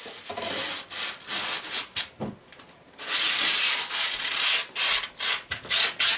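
Irregular rubbing and scraping noises, many short strokes with a longer stretch about three seconds in.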